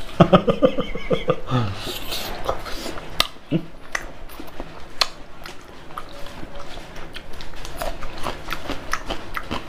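Close-up eating sounds: a man chewing pork and rice with his mouth full, with irregular wet clicks and smacks and fingers working rice on a steel plate. A short muffled voice sound comes in the first two seconds.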